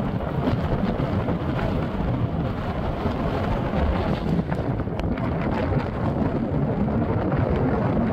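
Wind buffeting the microphone: a loud, steady low rumble and hiss with no clear tone.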